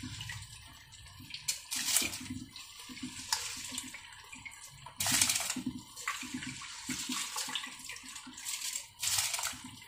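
Water bubbling in an aluminium pot of soaked basmati rice heating on a gas burner, with a few louder rushes of noise.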